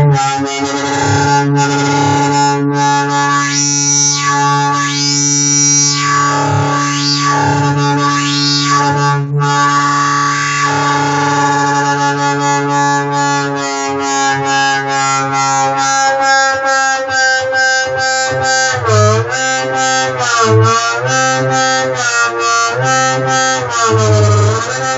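Native Instruments Massive software synthesizer playing a sustained buzzy drone with sweeping filter movements. About halfway in it turns into a rapid chopped pulse, about three a second, with repeated dips in pitch toward the end.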